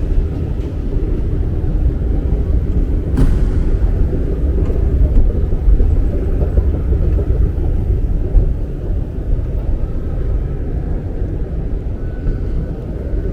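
Steady, loud low rumble that swells and fades unevenly, with one sharp click about three seconds in.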